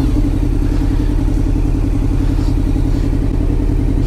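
Honda VFR750's V4 engine running at low revs at a steady pitch as the motorcycle creeps along slowly.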